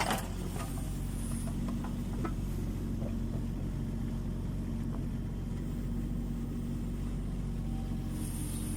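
Kubota U20 mini excavator's diesel engine running steadily, with a sharp knock right at the start and a few faint clicks.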